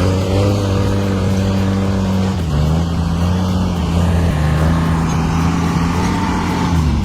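A motor engine running steadily at high revs, its pitch dropping a little about two and a half seconds in and dipping briefly near the end, as if it came under load.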